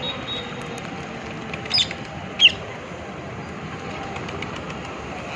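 A parrot gives two short, loud calls less than a second apart, each sliding down in pitch, over a steady background hiss.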